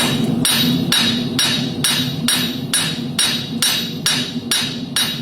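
Bloom Forge 1-3/4 lb clipping hammer striking a Kerckhaert steel horseshoe on an anvil at a steady pace of about two blows a second, each blow ringing. The blows draw out the shoe's clip and steer it to one side by twisting the wrist.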